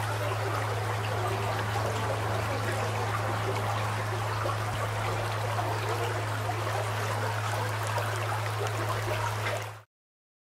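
A shallow stream running over rocks, giving a steady rushing babble, with a steady low hum underneath. Both cut off suddenly near the end.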